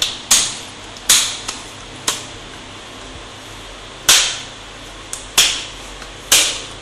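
Plastic snap-fit clips of a Lenovo Z460 laptop's screen bezel cracking loose as the bezel is pried off by hand: a series of about six or seven sharp cracks at uneven intervals. The crackling is the normal sound of the clips releasing and is harmless.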